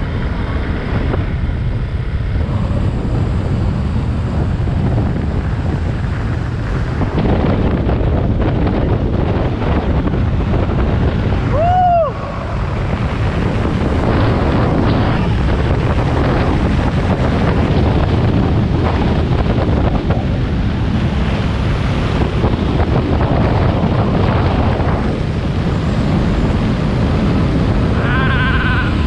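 Heavy wind buffeting the microphone of a camera on a moving motorcycle, over the motorcycle's running engine and road noise. A short tone that rises and falls cuts through about halfway, and another brief tone comes near the end.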